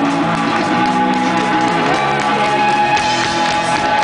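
Live rock band playing loud: electric guitar strummed over drums, with a note held high above the changing lower chords.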